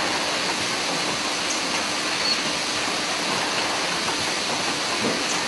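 Steady hiss and whir of syringe assembly and packaging machinery running on a factory floor, with a faint steady hum underneath.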